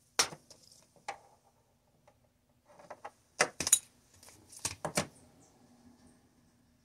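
Sharp clicks and light clinks of hard plastic and metal parts being handled: a cable and its plug knocking against the back panel of a TV. A few single clicks, then a quick cluster about halfway through and two more soon after.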